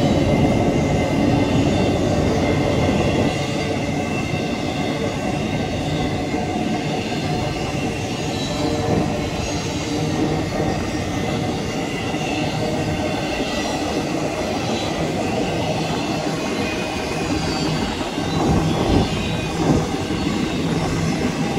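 Empty intermodal freight cars of a BNSF double-stack train rolling past close by as the train gathers speed: a steady rolling noise of steel wheels on rail.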